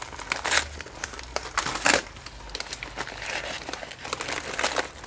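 Parcel packaging crinkling and rustling as it is opened by hand, in irregular sharp crackles.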